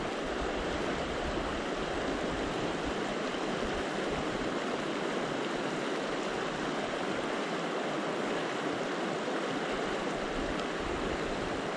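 Mountain river rushing: a steady, even noise of fast-flowing water.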